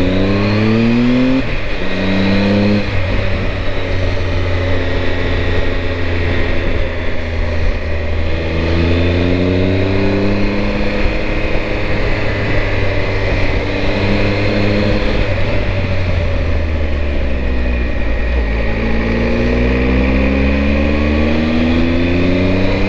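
Triumph Tiger 1200's three-cylinder engine pulling up through the gears, its pitch climbing in pulls near the start, about a third of the way in and again near the end, with steadier running between. Underneath is a steady rush of wind and road noise.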